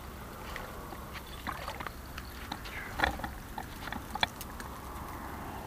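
Scattered light splashes and clicks while a hooked fish is played and reeled in through shallow water, over a low steady rumble.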